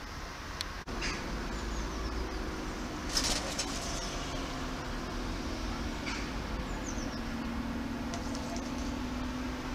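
Outdoor balcony ambience with short, high, downward bird chirps now and then and a few soft clicks. Under them runs a steady low drone that slowly drops in pitch, after a brief dropout about a second in.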